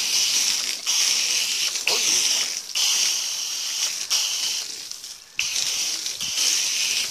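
Foam gun spraying a jet of soapy car wash solution onto a car's body panels and windows: a steady hiss and splatter, broken by several brief pauses. It fades somewhat around four to five seconds in, then comes back sharply.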